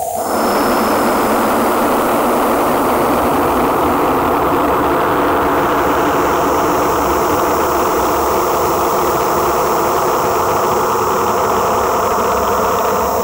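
Harsh industrial noise music: a loud, dense wall of noise that cuts in suddenly, with a few steady drone tones joining about four seconds in. It switches abruptly to a different texture at the very end.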